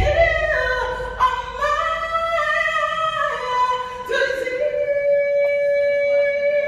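Woman singing a gospel song, holding long notes; one long note held from about four seconds in.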